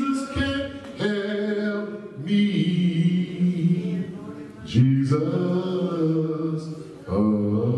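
Men's voices singing a slow hymn in long held notes, with a new phrase starting every couple of seconds.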